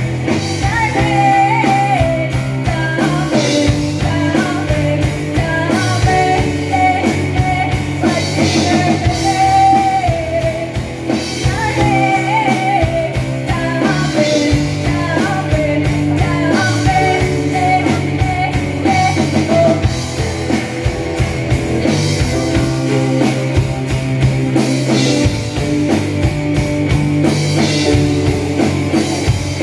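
A live rock band playing a song: a singer's voice carries the melody over electric guitars, bass guitar, drum kit and piano, heard from the audience in a hall.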